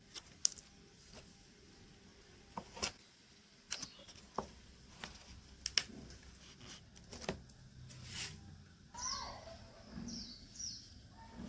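Scattered sharp clicks and taps, about a dozen over the first nine seconds. Near the end, birds start chirping in quick falling calls.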